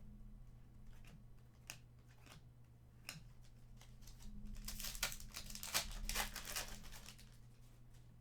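Trading card pack being opened and cards handled: scattered light card clicks and flicks, with a denser run of wrapper crinkling and tearing about halfway through.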